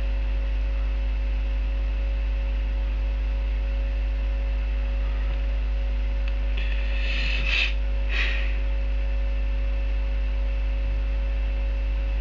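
Steady electrical mains hum and buzz in the recording, with a strong low drone and a few fixed higher tones over a faint hiss. Two brief soft noises come about seven and eight seconds in.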